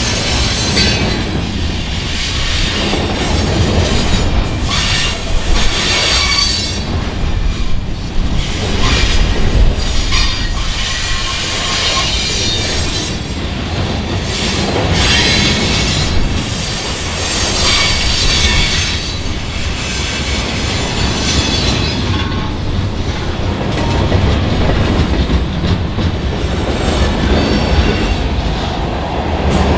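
CN freight train cars rolling past with a steady low rumble and clacking wheels, and steel wheels squealing against the rails that comes and goes every couple of seconds.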